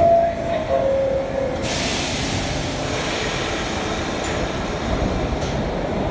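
R46 subway car's two-tone door chime, a higher tone stepping down to a lower one. About a second and a half in, a sudden hiss of air starts and slowly fades, over the train's steady low rumble as it starts to pull out.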